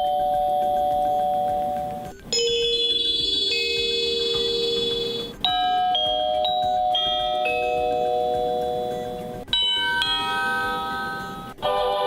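Honeywell Decor wireless door chime playing its selectable chime tunes one after another. First comes a two-note ding-dong, then a single held bell-like chord, then longer tunes of several notes, each cut off after a few seconds before the next begins.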